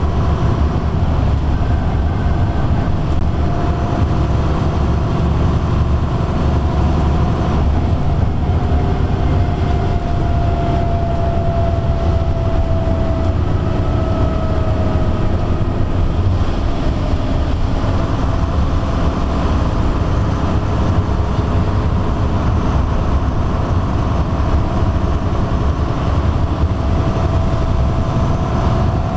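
Leyland Olympian bus with a Gardner 6LXB six-cylinder diesel and ZF gearbox running at a steady cruise, heard inside the passenger saloon. A deep, steady drone with a faint whine that slowly shifts in pitch.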